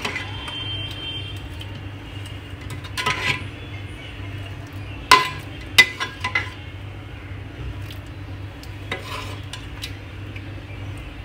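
A metal spoon scooping thick chicken masala gravy out of an aluminium pot, scraping and knocking against the pot, with a few sharp clinks, the loudest about five to six seconds in. A steady low hum runs underneath.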